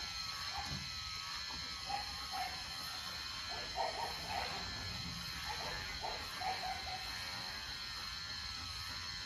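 Electric pet hair clippers run with a steady high whine as a dog is shaved. A dog whines briefly a few times around the middle.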